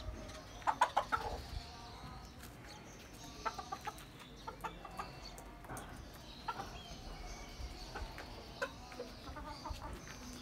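Chickens clucking in short bursts of quick calls, the loudest burst about a second in, with scattered single clucks after.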